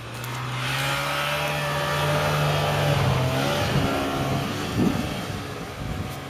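A motor vehicle engine running close by, growing louder over the first few seconds, its pitch shifting about halfway through, then easing off somewhat.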